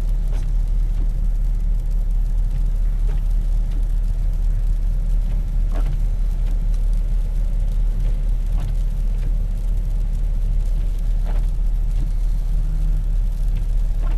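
Steady low rumble of engine and tyre noise heard inside a vehicle's cabin as it drives slowly on a snow-covered road. Faint short clicks come about every three seconds.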